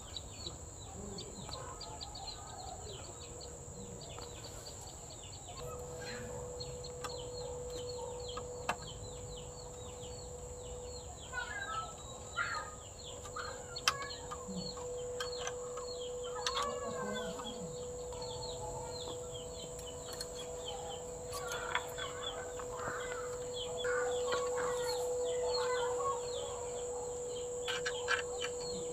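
Chickens clucking and calling, with a steady stream of high, quick chirps and a constant high-pitched hiss behind them; a few sharp knocks cut through, the loudest about halfway.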